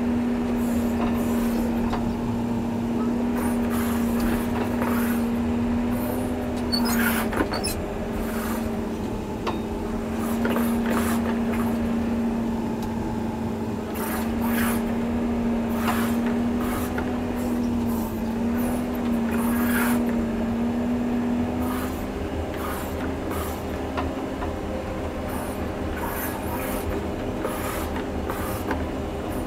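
John Deere 670G motor grader crawling along under load, its diesel engine running with a steady hum while the blade scrapes and drags dirt, with frequent knocks and rattles. The hum dips briefly about seven seconds in and fades about two-thirds of the way through.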